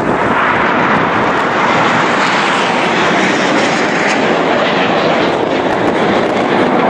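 Steady jet roar from several BAE Hawk T1 jets of the Red Arrows flying their display overhead, a loud even rushing noise that holds at the same level.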